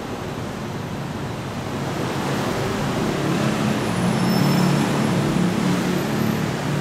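Yellow Line monorail train running past: a steady rumble with a low hum that builds from about two seconds in to its loudest around four to five seconds in, then eases slightly.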